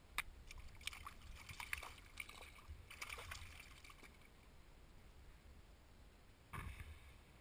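Faint splashing and sloshing of hands and a trout in shallow river water as the fish is released. There is a run of small splashes over the first four seconds and another short splash near the end.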